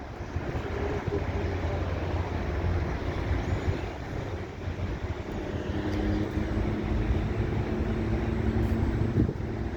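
Boeing 737-800's CFM56-7B jet engines heard at a distance during its takeoff: a steady rumble with a low hum that becomes clearer about halfway through.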